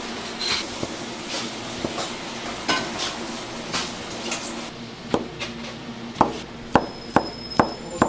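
A gloved hand stirs and handles halved green grapes in a plastic tub, making soft irregular squishes and clicks. About five seconds in, a chef's knife starts chopping bananas on a plastic cutting board: sharp knocks about twice a second, louder toward the end.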